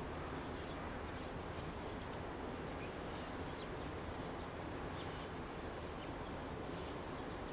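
Steady outdoor background noise with a low rumble, dotted with faint, scattered short bird chirps.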